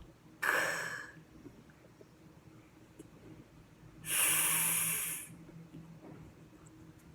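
A woman sounding out hissed consonant letter sounds for a phonics drill: a short breathy "fff" about half a second in, then a longer, sharper "sss" about four seconds in.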